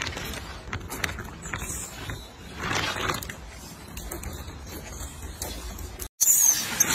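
Rhesus macaque drinking from a plastic bottle, with scattered clicks and crackles from the plastic and a brief louder rush about three seconds in. Just after six seconds the sound cuts out for an instant and a much louder, busier stretch of noise begins.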